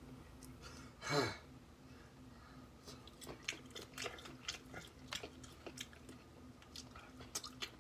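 A person chewing food close to the microphone: a short breath about a second in, then a string of faint wet clicks and smacks of the mouth from about three seconds in.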